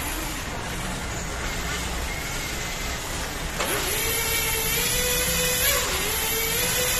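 Electric 1/10 XRAY T4 touring car running, with tyre and drivetrain noise throughout. About halfway in, a motor-and-gear whine comes in and wavers in pitch as the throttle changes.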